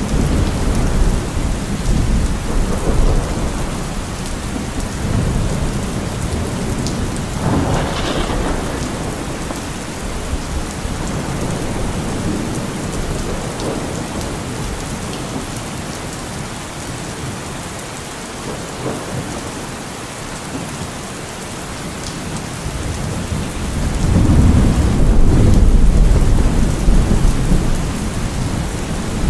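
Steady heavy rain with rolling thunder. Low rumbles come and go early on and a louder, long thunder rumble swells up near the end.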